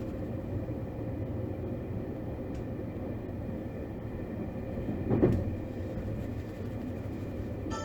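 Steady low rumble of a JR West 271 series electric train running, as heard inside the passenger car. A single thump stands out a little after five seconds in.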